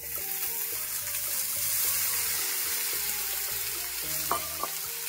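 Boiled corn kernels sizzling in hot ghee in a steel frying pan: a loud, steady hiss that starts as the wet corn goes in.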